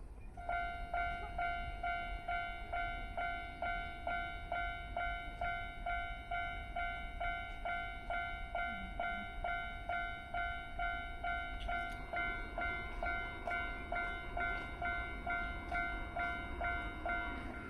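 Japanese railway level-crossing warning bell ringing steadily, about two strikes a second, starting about half a second in. Under it runs a low rumble that grows toward the end, the sound of a train nearing the crossing.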